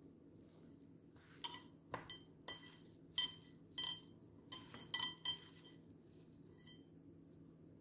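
Glass mixing bowl clinking in a quick, irregular run of about a dozen short knocks with a brief ring, as a hand works grated potato and gram flour against its sides. The knocks start about a second and a half in and stop a little past halfway.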